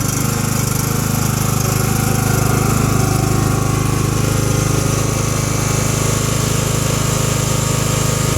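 John Deere LA110 riding mower engine running steadily just after starting, its spark plug holding in a freshly installed Helicoil thread insert.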